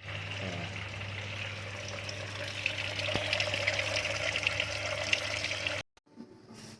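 Water rushing through a Samsung washing machine's water inlet valve as it fills, over a steady low hum; the sound stops abruptly near the end.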